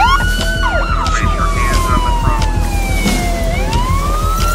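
A wailing siren: after a few quick up-and-down yelps at the start, its pitch falls slowly for about three seconds and then rises again. It plays over music with a steady beat.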